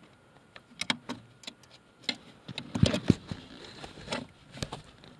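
Irregular small metallic clicks and taps from the clutch master cylinder's threaded pushrod and clevis being turned and fitted by hand against the clutch pedal, with a louder cluster about three seconds in.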